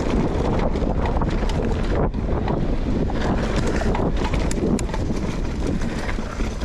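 Wind buffeting an action camera's microphone while a mountain bike rolls over a rough trail, with frequent small clicks and rattles from the bike.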